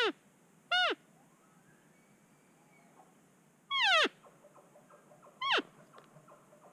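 Cow elk mews: four short calls, each sliding quickly down in pitch, the loudest about four seconds in.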